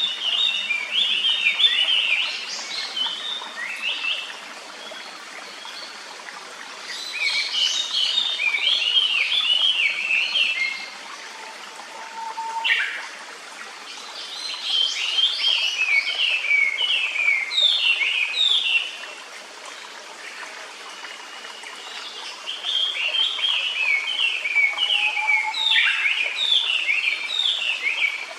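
Japanese paradise flycatcher singing: four bouts of quick, repeated whistled notes, each bout a few seconds long with pauses between, over the steady rush of a clear stream.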